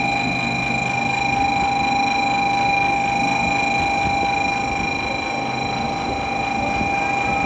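Shinkansen train noise on a station platform: a steady electrical whine with several constant tones over a low rumble.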